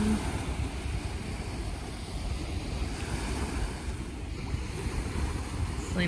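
Small waves breaking and washing up on the shore in a steady surf wash, with wind rumbling on the microphone.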